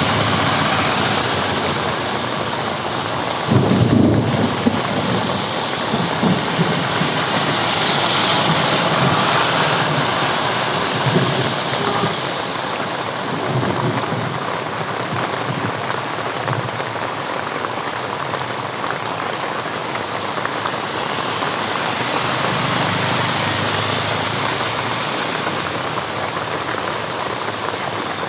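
Heavy rain pouring steadily, with a sudden loud thunder clap about three and a half seconds in that breaks into crackling rumbles, and a slower low rumble of thunder swelling and fading near the end.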